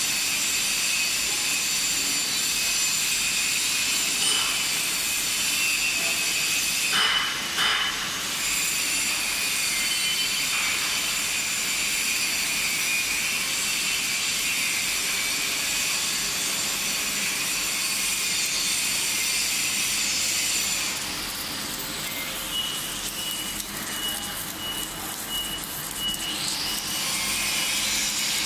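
Submerged arc welding station running on a pipe turning on welding rollers: a steady high hiss with several thin whining tones from the welding equipment. It is briefly disturbed about seven seconds in and runs a little quieter for a stretch in the last third.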